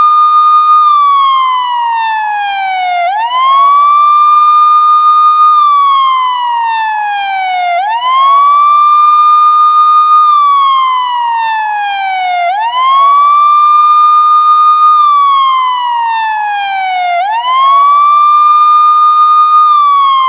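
Police siren in wail mode. Each cycle sweeps quickly up, holds the high note for about two seconds, then slides slowly back down, and the cycle repeats about every four to five seconds.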